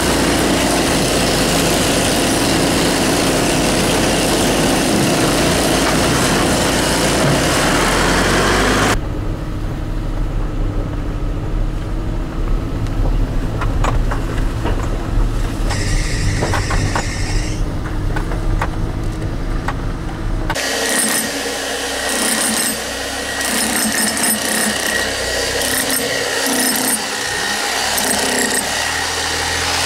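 A loader's engine runs loud and steady as its forks handle granite slabs. About nine seconds in it gives way to the low rumble of a car engine heard inside the cabin. From about twenty seconds in, a jackhammer with a chisel bit hammers on a granite slab in short runs.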